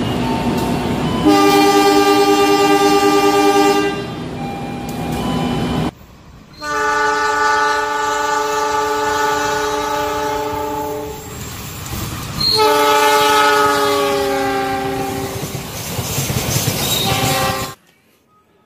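CC206 diesel locomotive's horn sounding in several long blasts over the noise of the train running; during the third blast the pitch sags slightly. The sound cuts off abruptly near the end.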